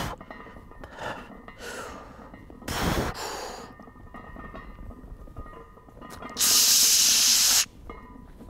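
A lifter's sharp, forceful breaths while bracing under and pressing a heavy barbell bench press, several short hissing breaths early on and one long, loud hissing exhale about six and a half seconds in.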